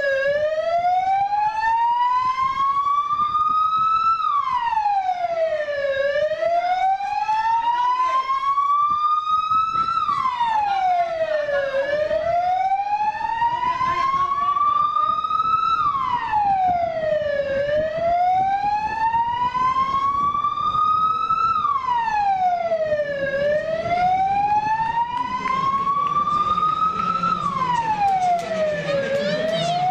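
Emergency-vehicle siren in a slow wail: each cycle climbs in pitch for about four seconds, then drops quickly, repeating about every six seconds, five times over. A noisier background rises beneath it near the end.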